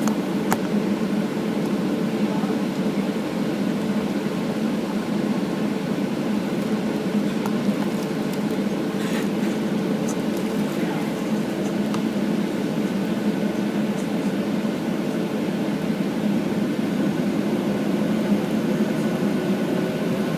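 Steady low hum in the passenger cabin of a Boeing 737-800 airliner before takeoff, with a constant drone.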